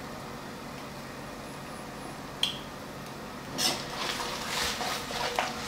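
A spoon stirring a thick sauce in an iron wok, scraping and clinking against the pan, starting a little past halfway. Before it there is a low steady hiss and one sharp click.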